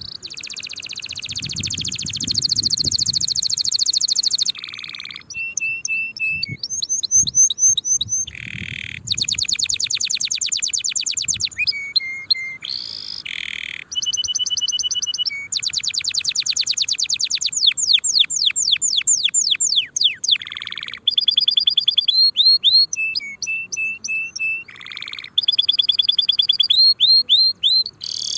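Domestic canary singing a long, varied song: runs of fast rattling trills alternate with slower series of repeated rising and falling whistled notes, and the song changes from one phrase type to the next every second or two.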